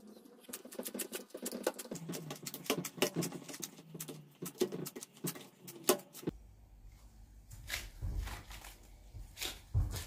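Gloved hands rubbing butter into flour in a ceramic plate, a quick, irregular patter of soft rubbing and tapping sounds. About six seconds in, the taps grow sparser and a low rumble comes in under them.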